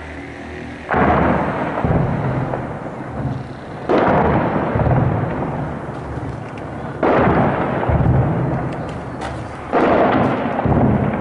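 Four heavy explosions from armed clashes, about three seconds apart. Each is a sudden boom that rolls off in a long rumbling echo.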